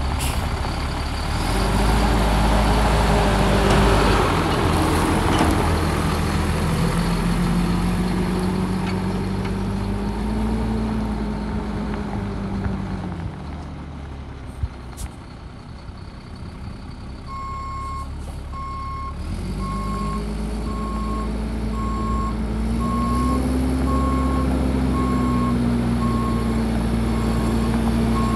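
A Peterbilt 335 truck's CAT C7 diesel engine pulling away and running up, then settling back near idle about halfway through. The engine picks up again as the truck reverses, its backup alarm beeping about once a second through the last ten seconds.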